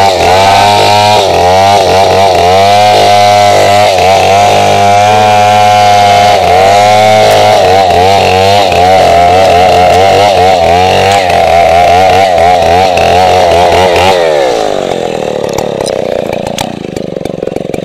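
Stihl 070 two-stroke chainsaw at full throttle cutting into a standing tree trunk, the engine pitch dipping and recovering as the chain loads up in the wood. About fourteen seconds in the throttle is let off and the engine winds down, running lower and quieter.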